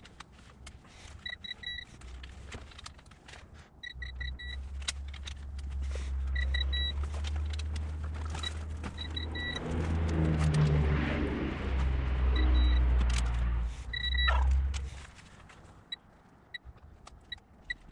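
Digital torque wrench beeping in short bursts of high beeps every few seconds as the cylinder-head bolts are tightened to torque, with ratchet clicks between. A low rumble rises about four seconds in and stops around fifteen seconds.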